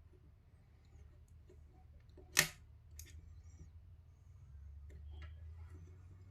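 Small plastic clicks from handling the opened PS5 controller's internals: one sharp click about two and a half seconds in, a fainter one just after, and a few light ticks, over a faint low hum.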